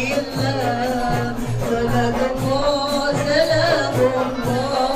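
Music with singing over a steady beat.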